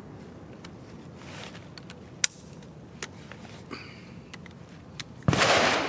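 Ruger SFAR rifle being worked by hand after a failure to extract: a few sharp metallic clicks, then a loud rack of about half a second about five seconds in, as the charging handle is pulled to clear the stuck case.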